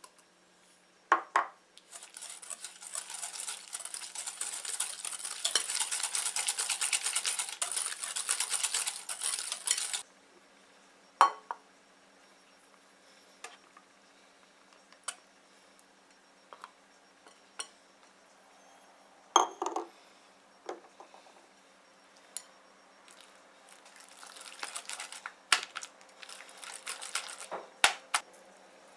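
Wire balloon whisk beating thick cream cheese and sugar in a glass bowl: fast, busy scraping strokes against the glass for several seconds. Then come a few separate clinks and taps of metal on glass, and near the end another spell of whisking.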